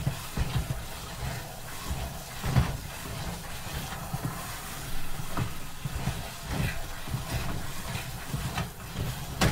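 Wooden spoon stirring and working a thick pot of bula (enset-starch) porridge, with irregular dull knocks and scrapes against the pot about once or twice a second.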